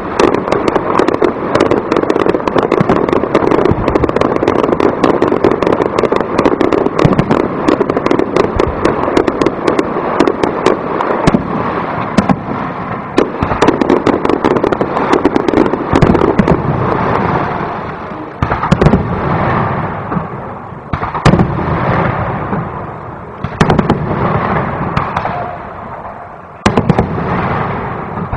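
Aerial fireworks display: for about the first half, a dense barrage of rapid bangs and crackling. After that come separate loud shell bursts every two to three seconds, each trailing off in a rumbling echo.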